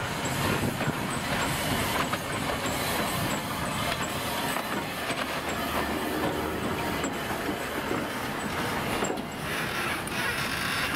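Thomas the Tank Engine steam locomotive rolling slowly past, with a steady hiss and rumble from its running gear on the rails. A faint light ticking repeats about twice a second.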